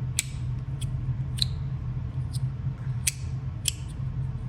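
Magnus Starfish fidget slider clicking as it is handled and spun: about six sharp, irregularly spaced clicks over a steady low hum.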